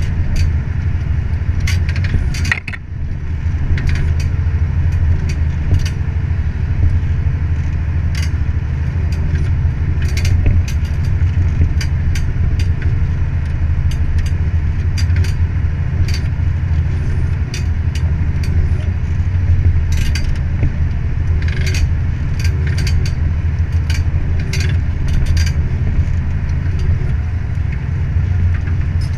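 Fiat 180-90 tractor's diesel engine running steadily under load while pulling a mounted plough through the soil, dipping briefly about two and a half seconds in. Frequent sharp clicks and rattles from the plough and hitch sound over the engine.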